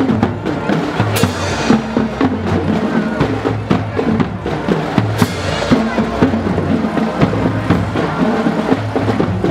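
A marching band's drumline playing a cadence: snare drums over deep strokes of tuned marching bass drums. Two bright crashes come about a second in and about five seconds in.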